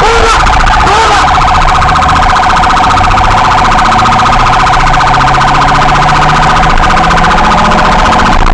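Police patrol car's electronic siren sounding a fast, steady warble, very loud.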